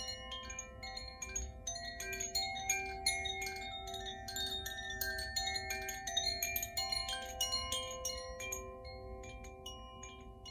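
Koshi chime, a bamboo-cased wind chime with tuned metal rods, ringing with many irregular strikes whose clear tones hang on and overlap. The strikes thin out near the end.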